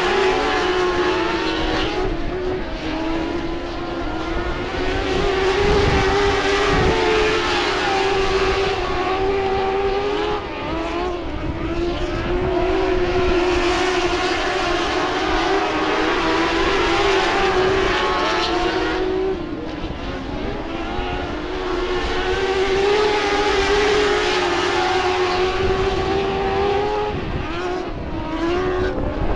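Several motorcycle-engined dwarf race cars running at speed. The engine note rises and falls as the cars pass and lift for the turns, in a repeating cycle about every eight seconds.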